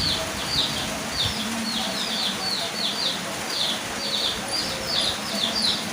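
Steady rain falling, with a small bird chirping over it again and again: short, high chirps that fall in pitch, about three a second.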